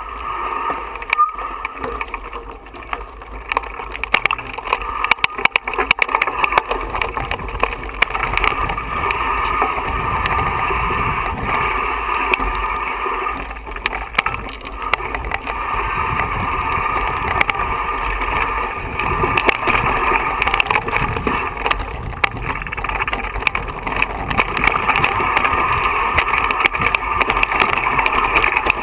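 Mountain bike riding over loose rocks and gravel on a stony singletrack: a steady rushing noise broken by many sharp rattles and knocks from the bike and tyres striking stones, thickest in the first several seconds.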